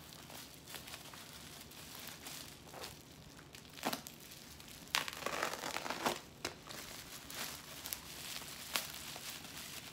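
Bubble wrap and foam packing crinkling and rustling as it is unwrapped by hand, with a few sharper crackles.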